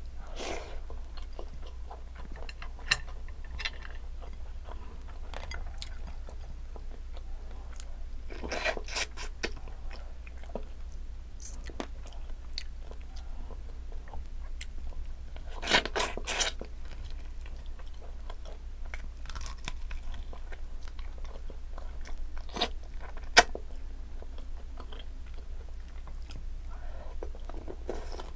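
Close-miked eating sounds of green mussels, fried tilapia and rice eaten by hand: chewing and smacking with intermittent crunches and scattered light clicks, one sharp loud click about four-fifths of the way in, over a faint steady low hum.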